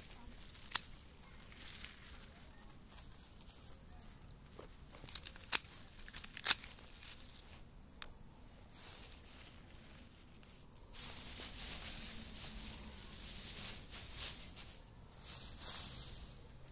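Dry straw mulch rustling loudly as it is pulled and pressed around the base of a young plant, starting about two-thirds of the way in. Before that, a few sharp clicks of straw and twigs being handled.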